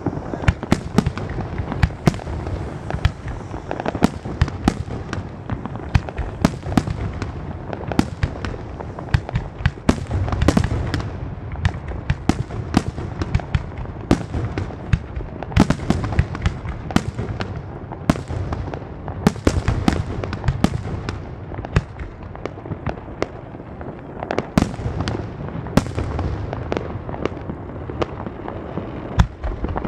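Aerial fireworks display: a continuous run of sharp bangs from bursting shells, at times several a second, over a steady rumble and crackle.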